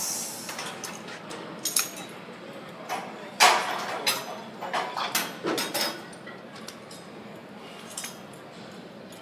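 Metal clinking and clanking of cable-machine gym equipment: a run of sharp knocks and rattles, busiest between about one and a half and six seconds in.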